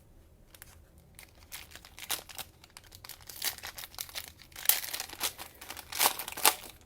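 Crinkling and rustling of the plastic wrapping on trading-card packs being handled, as a run of irregular crackles that grows busier and louder in the second half, with the sharpest crinkles near the end.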